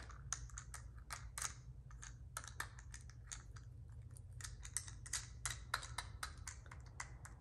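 Light, irregular plastic clicks and taps, several a second, from fingers and long fingernails working a small plastic ASMR fidget die.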